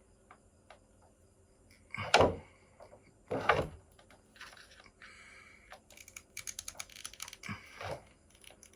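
Plastic figure parts and packaging being handled: scattered small clicks, two louder knocks about two and three and a half seconds in, then a stretch of quick clicking and crinkly rustling.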